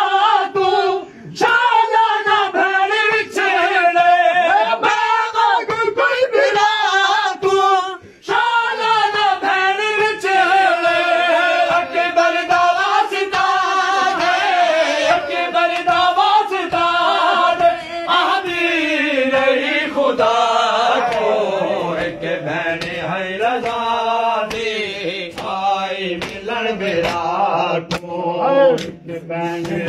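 Men chanting a noha, a Shia mourning lament, in a steady sung line, over a run of sharp hand slaps on bare chests (matam) beating time.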